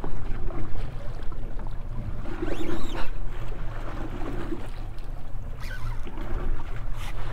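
Steady low rumble and water noise of an open boat drifting at sea in a light chop, with a few faint knocks.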